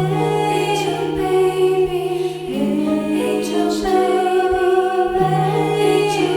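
Slow choral music: voices holding long sustained chords that change about every two and a half seconds.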